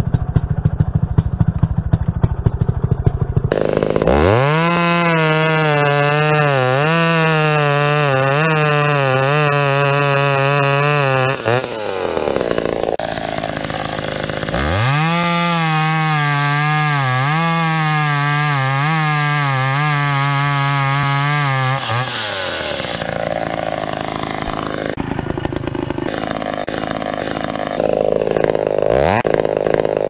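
McCulloch Pro Mac 570 two-stroke chainsaw idling, then revved to full throttle and cutting into a standing tree trunk for about seven seconds, its pitch wavering under load before it drops back toward idle. A second cut of about the same length follows, and the saw revs up once more near the end.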